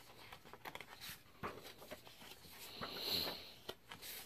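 Paper handout sheets being handled and shuffled by hand, with soft rustles and light taps as they slide and are set down. About three seconds in, a short breathy sound, the loudest thing here.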